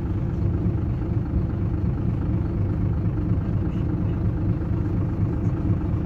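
Steady low rumble of a road vehicle in motion, heard from on board, with no clear events over it.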